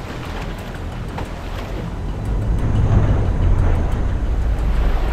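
Rushing whitewater and waves slapping against a loaded canoe as it runs a class one rapid, with a deep rumble that grows louder about two seconds in.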